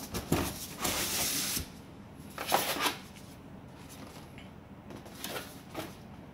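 Cardboard rubbing and scraping as a graphics-card box is pulled up out of a larger shipping carton. There is a longer scrape about a second in, then shorter rustles around three seconds and around five and a half seconds in.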